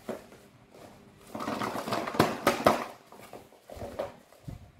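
Cardboard box being handled and worked open: scraping and rustling of cardboard with a few sharp taps, loudest from about a second in to nearly three seconds, then softer knocks of handling near the end.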